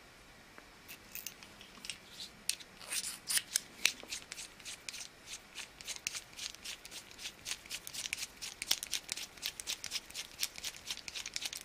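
Rapid, irregular small clicks and scrapes of metal handling as a tiny screw is turned into a brass screw-holding adapter with a screwdriver, starting about a second in and growing busier toward the end.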